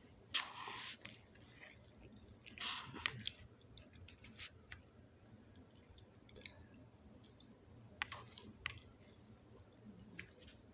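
A person chewing oatmeal close to the microphone: wet mouth noises, with two longer noisy bursts in the first three seconds, then scattered short mouth clicks.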